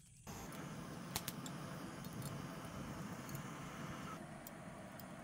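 Handheld butane torch flame running steadily as it lights charcoal, starting abruptly just after the beginning. Two sharp clicks come about a second in.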